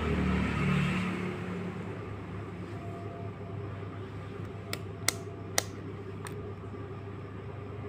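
Steady low hum and rumble, with a handful of sharp plastic clicks a little past the middle as a digital multimeter's rotary selector switch is turned.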